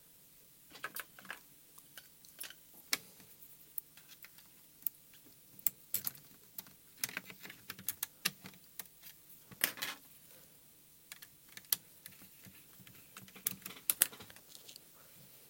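Irregular light clicks and taps of small parts being handled: screws and a gimbal being fitted into a plastic radio-transmitter case.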